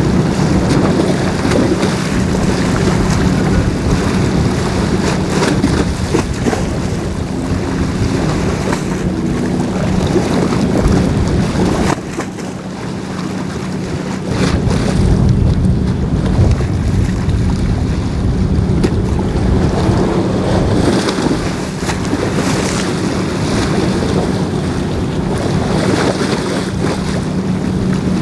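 Wind buffeting the microphone with a rumbling rush, over a steady low hum and choppy harbour water. The wind eases briefly about twelve seconds in, then picks up again.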